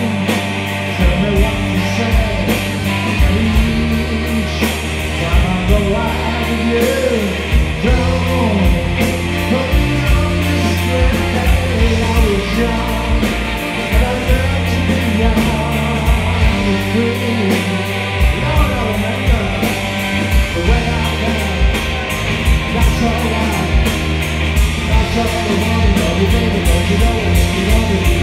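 Live rock band playing loud: electric guitar over bass and drums with a steady beat.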